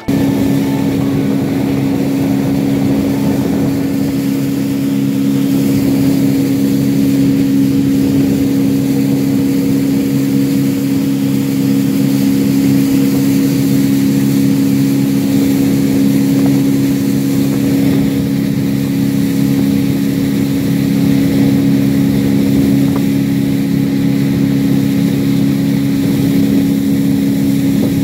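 Small aluminium boat's motor running steadily under way at an even speed, a constant low drone with a hiss of water and wind over it.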